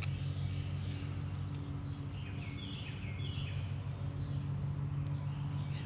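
Outdoor background of short repeated bird chirps over a steady low hum.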